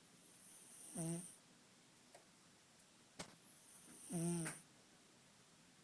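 A sleeping kitten snoring: two snores about three seconds apart, each a breathy rasp that ends in a short buzzy tone. A sharp click comes just before the second snore.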